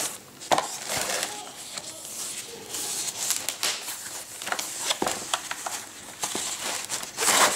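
Packaging being handled during an unboxing: rustling with scattered clicks and knocks, and a louder rustle near the end.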